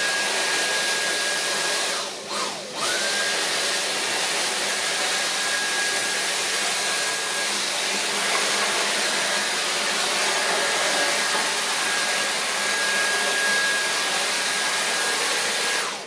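Dyson V8 Animal cordless stick vacuum running steadily, its digital motor giving a whine over the rush of suction air. About two seconds in the motor briefly winds down and spins straight back up, then runs on.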